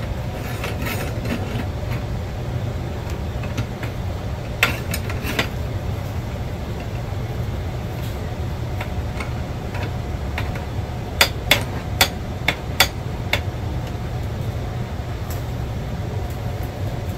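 Sharp metal knocks as the welded torsion spring bar is worked through the base of an Eames chair: two about five seconds in, then a quick run of six between about eleven and thirteen seconds in, over a steady low hum.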